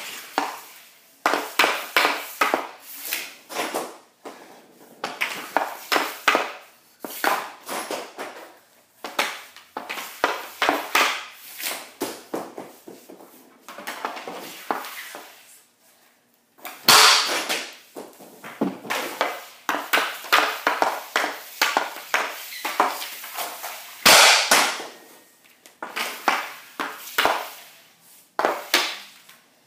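Hockey stick blade clacking on a shooting pad and on pucks in runs of rapid taps as pucks are stickhandled. A few loud cracks of pucks being shot break up the taps.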